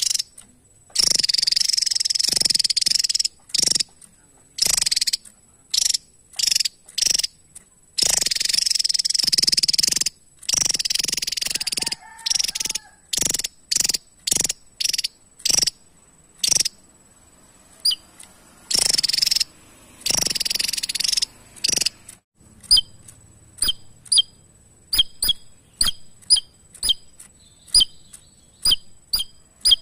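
Javan tesia singing: long, rapid, dense song phrases of one to two seconds alternate with short single notes, then about two-thirds of the way through it changes to a steady run of short, sharp chirps, about two a second.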